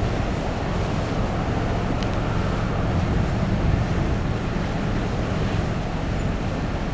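Wind buffeting the microphone over a steady low rumble from the cruise ship Europa 2 as it moves off.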